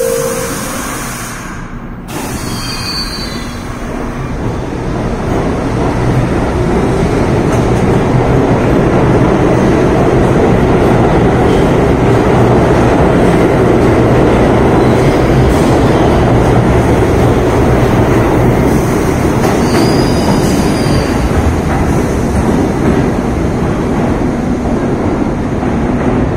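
R62A New York City Subway train pulling out of the station. It starts with the last note of the door chime and the doors closing. The motors and wheels then build up over several seconds as the train accelerates, and settle into a loud, steady running noise in the tunnel. A brief wheel squeal comes about 20 seconds in.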